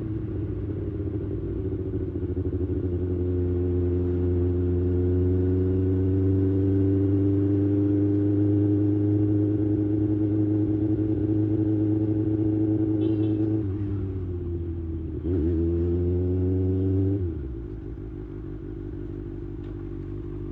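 Kawasaki Ninja ZX-6R inline-four engine running through an IXIL slip-on exhaust, its note climbing gently and then holding steady. About fifteen seconds in the pitch dips and recovers, and about three seconds before the end it falls to a lower, quieter note.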